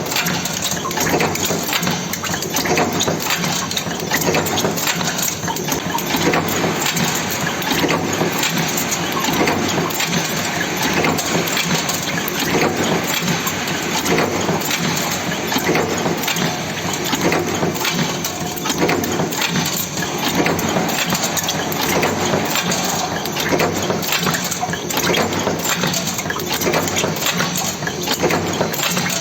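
Cold forging (cold heading) machine running steadily while forming M6×38 stainless steel flange screws: a dense, continuous clatter of rapid metal strikes.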